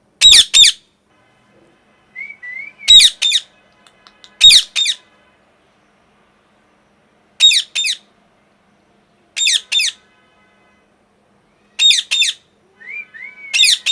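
Indian ringneck parakeet giving loud, harsh screeches, mostly in quick pairs, every two to three seconds. A couple of softer rising whistled notes come between them.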